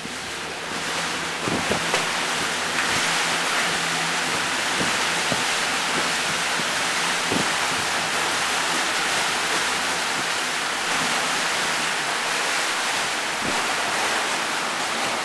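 Steady rushing of water along a moving boat's hull, with a low engine hum underneath that fades out about twelve seconds in, the boat running through a corrugated-metal culvert.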